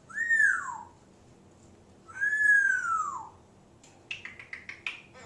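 African grey parrot whistling: two whistles that each rise and then fall in pitch, the second longer, followed near the end by a quick run of short clicking chirps.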